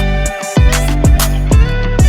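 Background music: a song with guitar over a steady drum beat.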